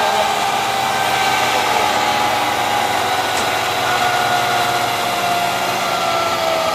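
Electric motorcycle motor and dyno roller whining over a steady rushing noise, the whine slowly falling in pitch as the speed drops.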